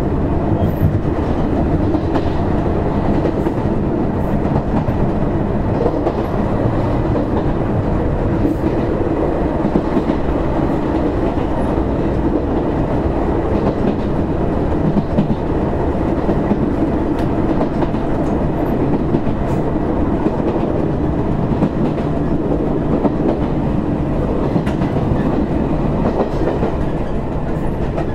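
Izuhakone Railway Sunzu Line electric train car 7301 running between stations, heard from inside the car: a steady rumble of wheels on rails and running gear with no change in level.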